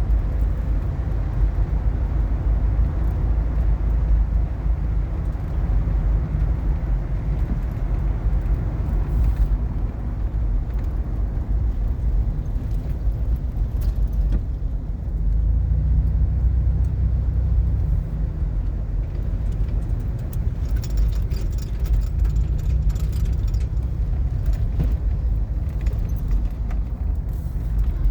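Steady low road and engine rumble heard from inside a moving car, with light metallic clicking or jingling in the last third.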